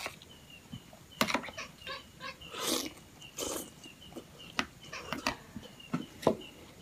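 Close-up eating sounds: a metal spoon clicking and scraping on a plastic plate, with slurps and wet chewing of rice and soft young-coconut flesh soaked in milk. The two loudest slurps come near the middle.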